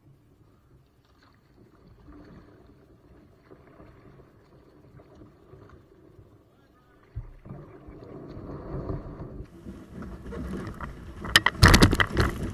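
A kayak hull grounding and scraping up onto a bank of dead leaves about seven seconds in, followed by crackling of dry leaves and brush and sharp knocks from the camera being handled, loudest near the end.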